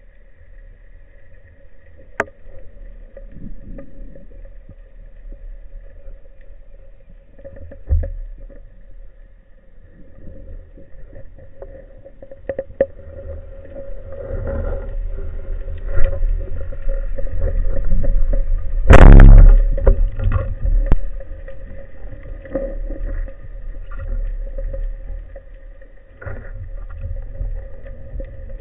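Underwater sound heard through a camera housing mounted on a speargun: a low rumble of moving water with scattered clicks and taps and a steady hum. The noise swells in the second half, and a loud rushing burst lasting about a second comes about two-thirds of the way through.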